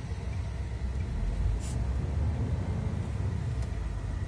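Steady low rumble of a MAN semi-truck's engine and road noise heard from inside the cab as the tractor-trailer drives slowly through a roundabout. A brief hiss comes about a second and a half in.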